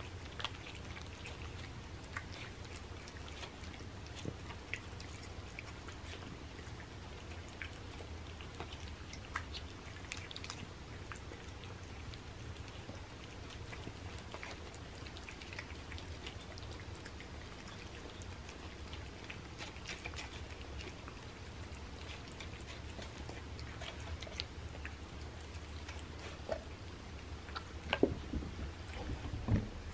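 Cats eating wet canned cat food from plates close up, giving small, irregular wet smacking and chewing clicks over a steady low hum.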